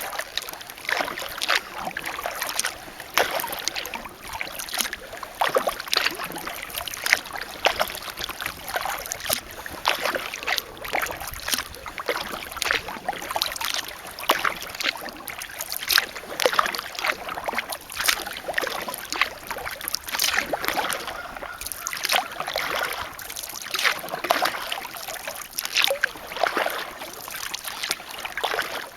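Kayak paddling: the paddle blades dip and splash, and water drips off them in an irregular run of small splashes.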